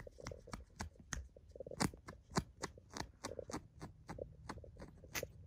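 Newborn kittens suckling: wet clicking and smacking sounds at an irregular pace, a few a second, over a low rumble.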